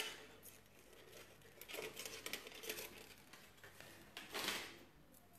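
Faint rustling and handling noises, with a short click at the start and a brief louder rush about four and a half seconds in.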